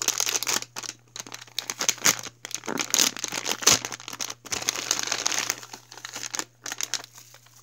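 A squishy's printed plastic packaging bag crinkling as it is opened and handled: a dense run of crackles that thins out near the end.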